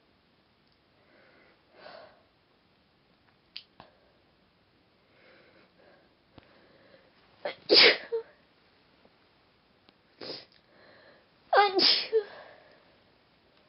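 A woman sneezing, deliberately induced: two loud sneezes about eight and twelve seconds in, with a smaller burst between them and faint short sounds in the seconds before.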